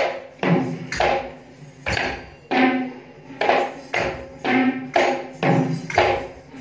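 Kandyan drums (geta beraya) played live in a rhythmic pattern of sharp, ringing strokes, about two a second.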